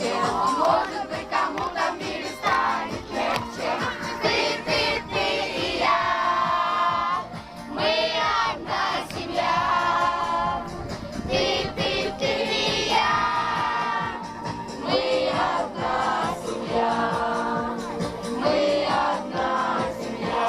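A song sung by a group of voices over instrumental accompaniment, with long held, wavering notes.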